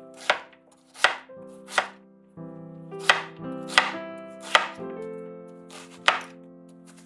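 Kitchen knife slicing through an onion and striking a hard cutting board: seven sharp chops at an unhurried, slightly uneven pace. Soft piano music plays underneath.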